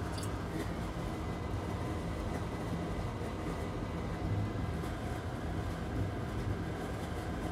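Steady low hum with an even hiss underneath, unchanging throughout and with no distinct events.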